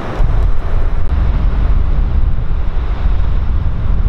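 A jet airliner's engines roaring and slowly fading, over heavy wind rumble on the microphone.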